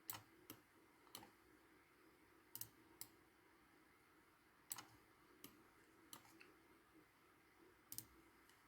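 Faint computer mouse clicks, about ten of them at irregular intervals, some in quick pairs, as edges are selected one by one for a fillet in CAD software.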